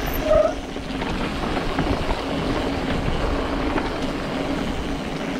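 Mountain bike riding fast down a dry dirt-and-gravel trail: tyres rolling and crunching over the surface and the bike rattling over bumps, with wind on the microphone. A brief squeal about half a second in.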